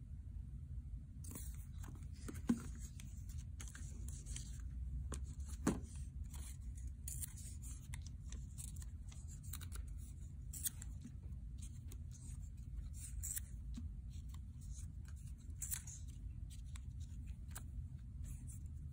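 Paper handling: irregular rustling and soft tearing of a strip of construction paper, with a few sharp taps, over a low steady hum.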